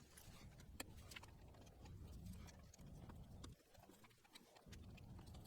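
Near silence with faint, irregular small clicks and taps from fitting the plastic lens cover onto the motorcycle's turn signal.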